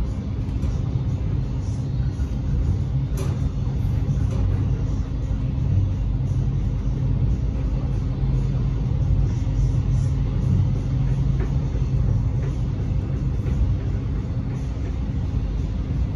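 Alstom X'Trapolis electric train running at speed, heard from inside the carriage: a steady low rumble with a constant hum, and a single sharp click about three seconds in.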